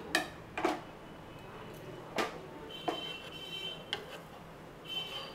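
A pan lid and a metal spatula knocking against a frying pan: about five sharp clinks, with two short high squeaks of the spatula scraping the pan about three seconds in and near the end.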